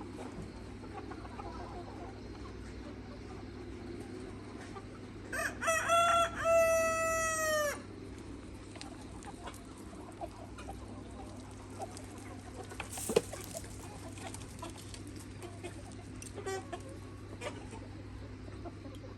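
A Mía rooster crows once, a single call of about two and a half seconds starting about five seconds in, with hens clucking quietly around it. There is a single sharp click about thirteen seconds in.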